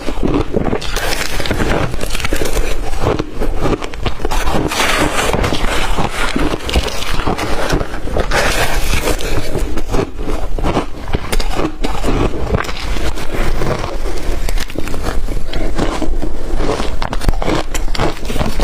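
Close-miked mouth chewing blender-crushed ice: dense, continuous crunching and crackling.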